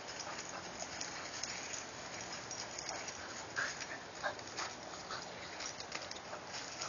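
A dog's paws and a stick she is pushing along with her nose crunching and rustling through dry fallen leaves, in irregular crackles, with two louder crunches about three and a half and four seconds in.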